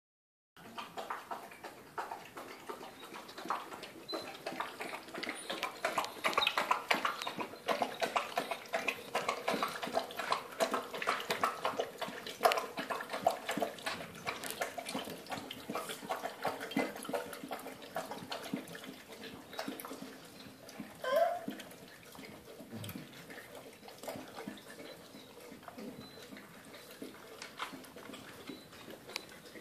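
Basset hounds lapping water from a glass bowl: a fast, busy run of wet laps that thins out in the last third. A short rising squeak about two-thirds through.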